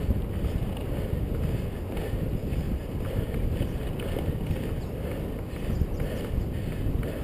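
Wind buffeting the microphone of a moving GoPro HD Hero: a steady, rough low rumble with no clear engine note.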